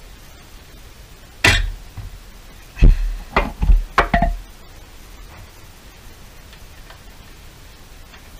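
Metal knocking as parts of the exhaust are handled at the pipe clamp under the car: one sharp clank about a second and a half in, then a quick run of about five clanks and clicks, the last ringing briefly.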